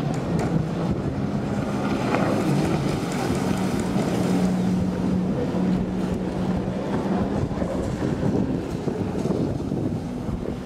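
Jet ski engines running at speed, a steady drone with wind buffeting the microphone.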